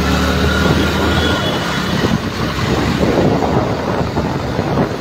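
Wind buffeting the microphone on a moving Hero Splendor motorcycle in traffic. A steady engine and traffic hum fades under the wind rush after about a second and a half.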